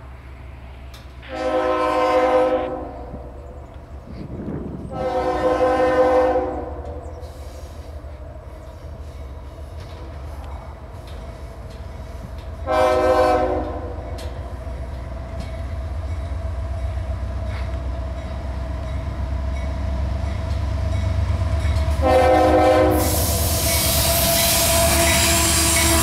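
Nathan K5HL five-chime air horn on a CSX GE AC4400CW diesel locomotive sounding four blasts, two long then two short, over the locomotive's rumble, which grows steadily louder as it approaches. Near the end the locomotive passes close by with a loud rush of engine and wheel noise.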